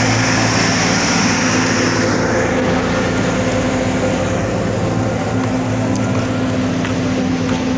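Engine of heavy road-construction machinery running steadily at a blacktopping site, with a hiss over the first two seconds.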